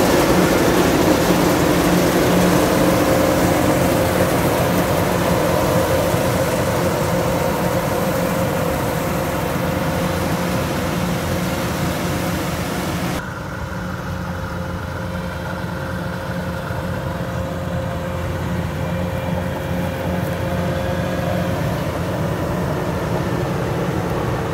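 Kubota DC-105X combine harvester's diesel engine and machinery running steadily under load while it cuts rice. About halfway through, the sound turns suddenly duller and a little quieter.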